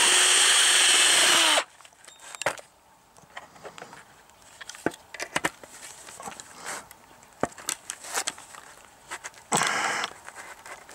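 A cordless drill runs as it bores through thin painted sheet steel, stopping about a second and a half in. Then come scattered sharp clicks and snaps as a hand pop-rivet gun is squeezed to set rivets in the seam of the sheet-metal cone. A second steady noise lasts about a second near the end.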